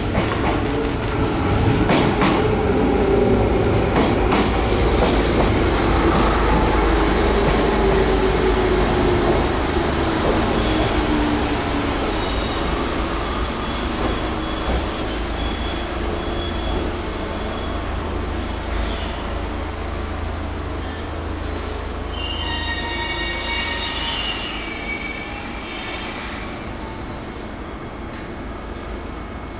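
Enshu Railway electric train slowing into the station: a low rumble under a motor whine that falls in pitch over the first ten seconds. Thin, high, steady wheel squeal joins in and carries on, swelling into a louder chorus of squealing tones a little before the end. It then dies down to a quieter hum as the train comes to a stop.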